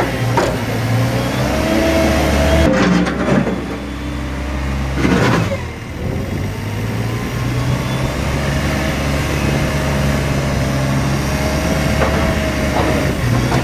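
Kramer Allrad 1245 telehandler's diesel engine running while it works its bucket, with a thin steady whine over the engine note. The low engine sound drops back about three seconds in and picks up again around six seconds, with a short rush of noise just before.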